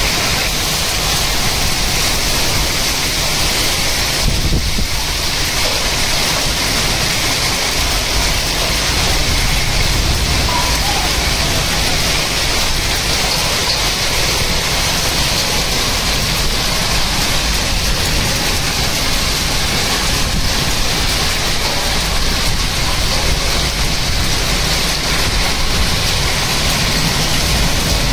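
Heavy rain mixed with hail falling steadily onto a concrete rooftop terrace, a constant even downpour.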